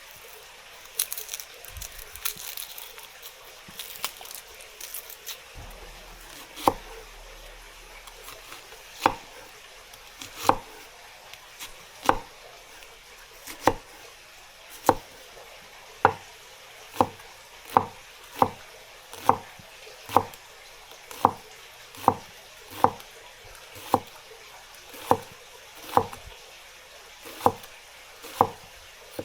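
Knife chopping on a cutting board with slow, steady strokes, about one a second, after a little light clatter in the first few seconds.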